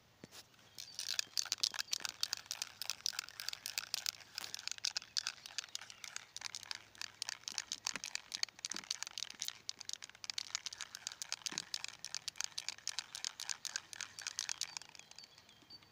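Aerosol spray-paint can being shaken hard, its mixing ball rattling in rapid, even clicks that start about a second in and stop near the end. The paint is being remixed because the can was spitting from too little shaking.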